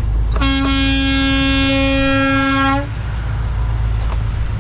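Kenworth T660 truck horn sounded in one steady blast of about two and a half seconds, over the truck's engine running: a warning to a car squeezing in on the truck's right side during a turn.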